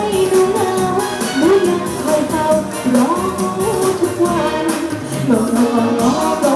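Thai luk thung song performed live: a woman sings a gliding melody into a microphone over backing music with a steady beat.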